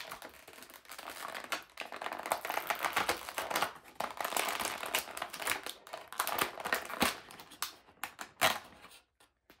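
Thin plastic packaging tray crinkling and crackling as an action figure is worked out of it, a rapid uneven run of crackles that stops shortly before the end.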